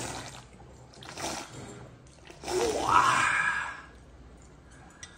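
Someone loudly slurping ramen noodles and broth: one long breathy intake that rises in pitch, about two and a half seconds in. A smaller slurp or sniff comes about a second in.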